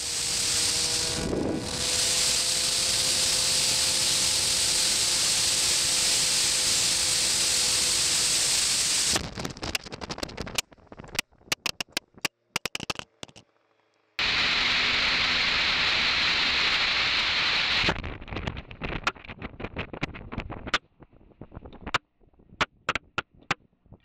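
Wind noise over a camera microphone on a motorcycle at speed: a steady loud hiss with a faint engine tone beneath. About nine seconds in, the sound breaks up into choppy crackles, clicks and dropouts. It returns to steady wind hiss for a few seconds, then breaks up again near the end.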